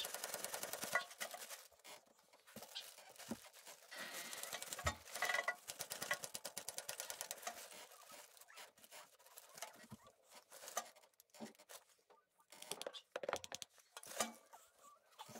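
Sped-up time-lapse sound of hand-tool work on a compact tractor: runs of rapid, even clicking and rattling from wrenches and tools on metal, pitched up and thin.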